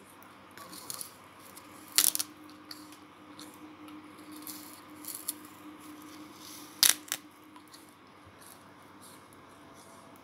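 Bites into a frozen dishcloth: two loud crisp crunches, about two seconds in and again near seven seconds, with softer crackling between them.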